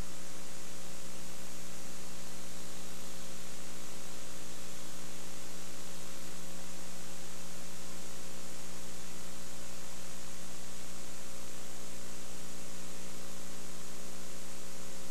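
Steady electrical mains hum with an even hiss and no game sound at all. The programme audio has cut out, leaving only hum and tape noise from the recording chain.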